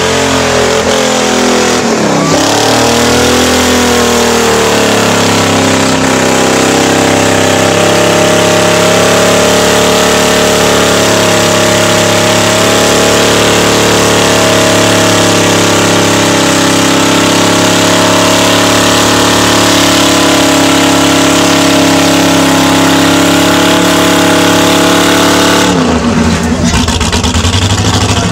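Mud bog buggy's engine at full throttle with its tyres buried in deep mud. It revs up and down a few times, holds at high revs for a long stretch, then drops off abruptly near the end.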